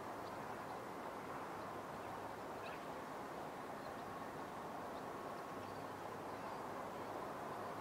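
Steady outdoor background noise with a few faint, short, high bird chirps scattered through it.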